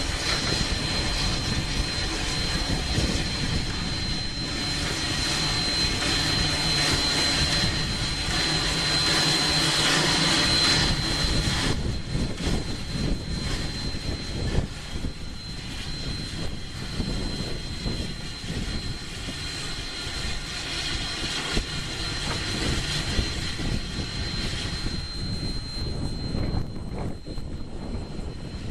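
Rio Grande Southern No. 20 steam locomotive standing under steam, a steady roar of escaping steam with a thin high whine over it. The roar eases off about twelve seconds in.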